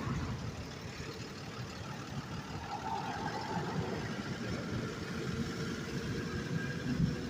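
Truck engine idling close by, a steady low rumble, with wind buffeting the microphone.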